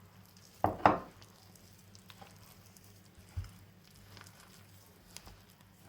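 Oil being added to a bowl of crumbled butter, sugar and flour dough: two sharp knocks just under a second in, then faint soft patting and squishing, with a dull thump about halfway through.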